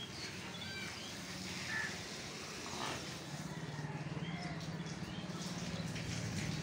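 Scattered short bird chirps over a steady low hum, which grows a little louder about halfway through.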